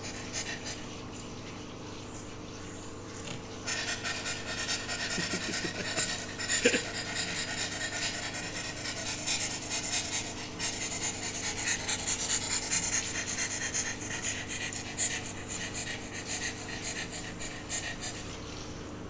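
A dog panting hard and fast, a rasping rhythm that starts a few seconds in and keeps going, over a steady low hum. A single short knock sounds about seven seconds in.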